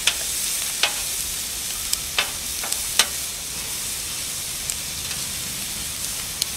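Bell peppers and mushrooms sizzling on a hot plancha griddle, with a steady hiss. Metal spatulas click and scrape against the plate as the vegetables are stirred, with several sharp clicks in the first three seconds.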